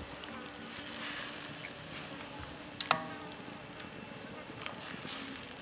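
Metal ladle scooping and stirring chicken soup in a steel wok, liquid sloshing and pouring back, with a single ringing clank of the ladle against the wok about three seconds in.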